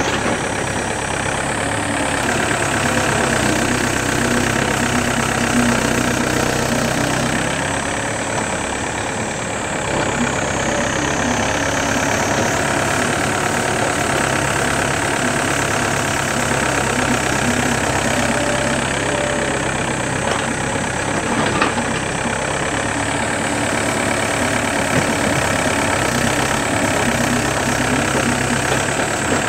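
Yanmar B7 mini excavator's diesel engine running steadily while the machine digs, with one brief clank about two-thirds of the way through.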